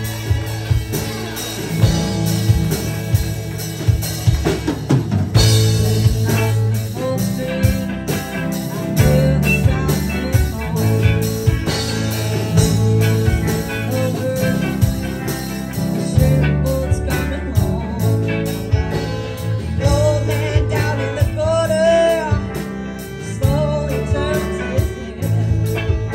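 Live rock band playing: electric guitars over a drum kit and bass, with a wavering lead melody line coming forward near the end.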